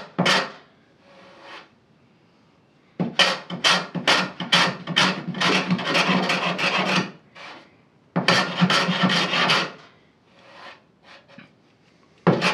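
Hand plane squaring the sawn end grain of a wooden shelf board held in a vise: a run of quick shaving strokes, about two a second, then a longer burst of strokes, and one more near the end, with short pauses between.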